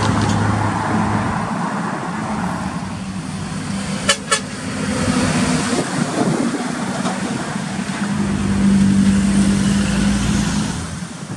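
Heavy trucks driving past on a highway, their diesel engines droning. Late on a truck horn sounds a low steady blast for a couple of seconds. Two sharp clicks come about four seconds in.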